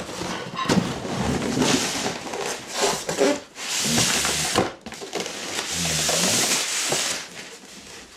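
Cardboard box and paper packaging being handled and rummaged through: rustling and rubbing in stretches of a second or more, with short pauses between them.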